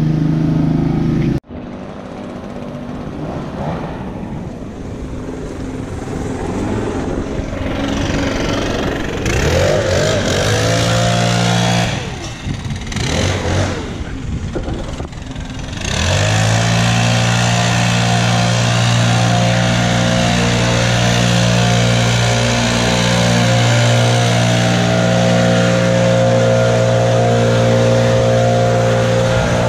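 Small gas engines running. A push mower runs until it is cut off suddenly about a second and a half in. After a stretch of lower, changing engine noise, a backpack leaf blower's engine runs steadily at high speed from about halfway through.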